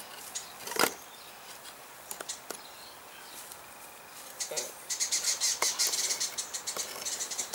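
Clay house bricks being stacked by hand: one sharp clunk of brick on brick about a second in, then lighter knocks and scrapes as more bricks are set in place.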